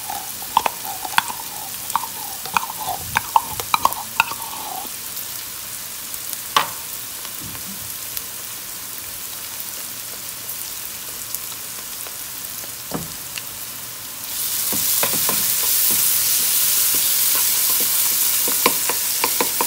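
Diced onion, bell pepper and jalapeño sizzling in hot oil in a nonstick pan, with a spoon scraping and squeaking against a metal can of tomato paste at first and the spoon clicking against the pan. About fourteen seconds in the sizzling grows louder and stays up while the tomato paste is stirred into the vegetables with a wooden spoon.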